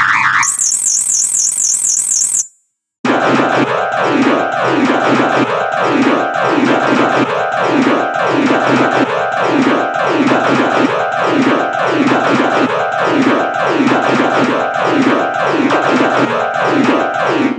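MIDI piano playback of dense note clusters, many keys sounding at once: a fast zigzag run of stacked notes high up, a brief silent gap about two and a half seconds in, then a thick cluster of low and middle notes sweeping down and back in a repeating pattern, about one and a half sweeps a second.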